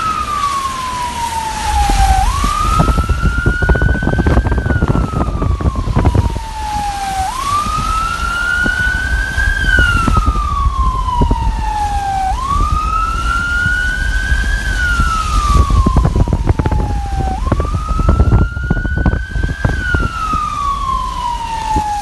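Emergency vehicle siren in a slow wail: the pitch rises and then falls away, repeating about every five seconds, over a loud rumbling, crackling noise.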